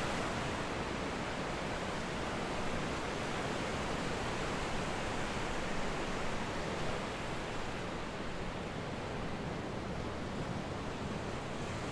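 Steady wash of ocean surf breaking on a rocky shore, a continuous noise easing slightly about eight seconds in.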